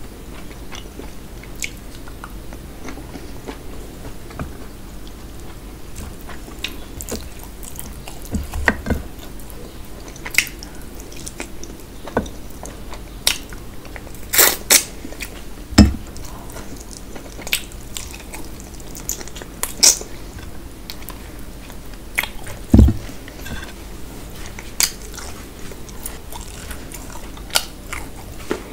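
Chewing and biting of puri with mutton curry eaten by hand: wet mouth sounds under scattered sharp smacks and clicks. Near the end comes a crisp bite into a cucumber slice.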